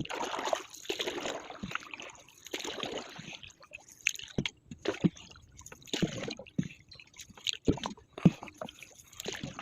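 Water sloshing and splashing in repeated strokes, each about half a second long, with scattered light knocks in between.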